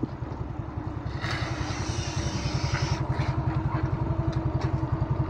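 Motor scooter engine running at low speed with a rapid, even putter as it rides up slowly.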